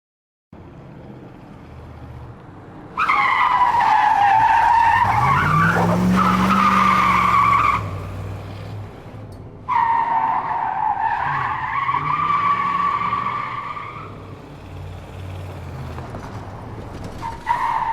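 Muscle car drifting, its tyres squealing in long skids over the engine. There are three squeals: the first comes about three seconds in and lasts nearly five seconds, the second lasts about four seconds, and a third starts near the end. The engine revs up and back down during the first skid.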